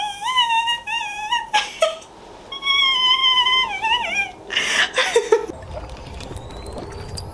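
Whistling-kettle sound effect standing in for a scream: two long, high-pitched, wavering whistles, with short noisy bursts between and after them. Near the end, a soft sip through a straw.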